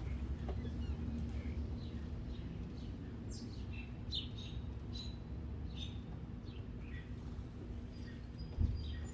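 Small birds chirping: a scatter of short, high chirps, busiest through the middle, over a steady low background hum. A single low thump near the end.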